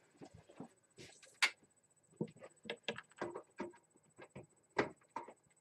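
Irregular light clicks and knocks, about a dozen short ones, from hands handling a desktop computer and its hardware.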